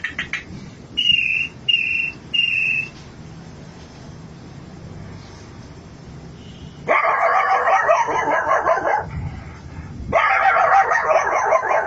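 Three short, high whistles, then a man imitating a dog barking and yipping in two long, loud bursts.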